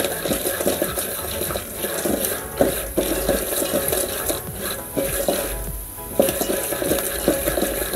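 Wooden spoon stirring dry popcorn kernels in a little oil in a metal pot. The kernels rattle and scrape across the pot's bottom in short irregular clicks. They have not yet begun to pop.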